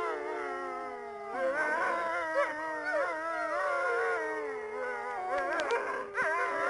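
A pack of wolves howling in chorus: several overlapping howls at once, some held long and nearly level, others sliding up and down and wavering in pitch.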